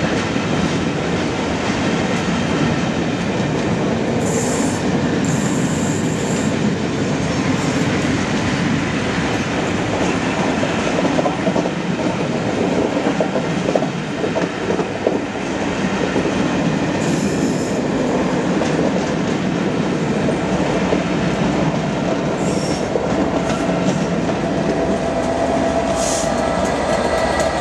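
The VSOE charter train behind 60163 Tornado rolling past with a steady rumble and wheel clatter over the rail joints. Several short, high wheel squeals come through, about five times.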